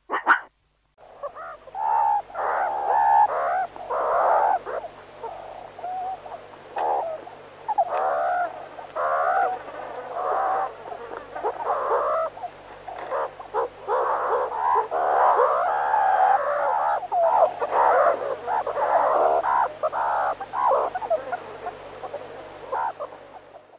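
Meerkats calling, several at once: a steady run of short chirping calls that rise and fall in pitch and overlap one another, beginning about a second in.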